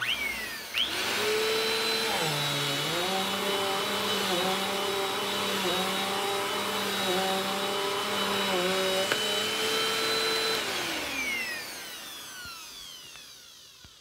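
Bissell PowerForce Compact upright vacuum cleaner switched on with its foot button, its motor whining up to speed and running kind of loud with a steady hiss as it makes a couple of passes over carpet, its pitch dipping briefly a few times. About 11 seconds in it is switched off and the whine slides down as the motor spins down.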